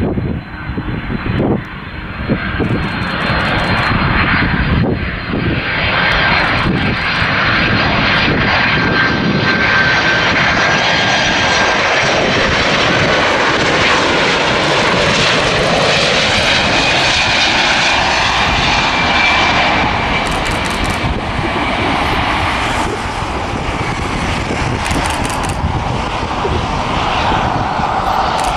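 Twin-engine jet airliner on landing approach passing low overhead. Its engines' rumble and whine build over the first few seconds and then hold loud and steady, with thin high whistling tones that drift in pitch as it goes by.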